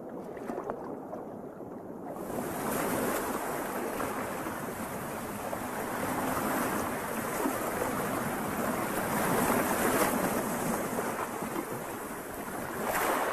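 Lake water splashing and sloshing as an osprey rows itself across the surface with its wings, weighed down by a fish too heavy to lift off with. A steady wash of splashing, dull and muffled for about the first two seconds, then brighter and clearer.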